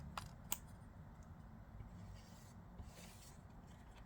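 Faint handling of a 3D-printed plastic folding-knife prototype: two sharp little clicks in the first half-second, then light rubbing and tapping of the plastic parts.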